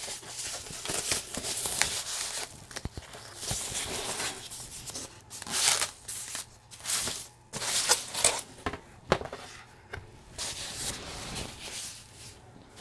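White foam packaging sleeve rustling and crinkling in irregular bursts as a light pad is slid out of it and handled.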